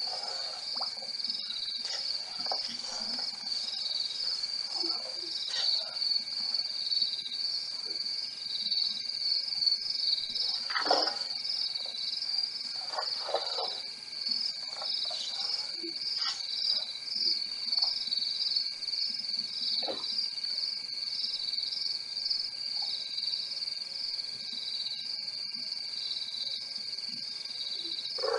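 Night chorus of crickets trilling steadily in a high, pulsing band, with a fainter steady lower tone from other insects beneath. A few brief, short noises break in now and then, the clearest about halfway through.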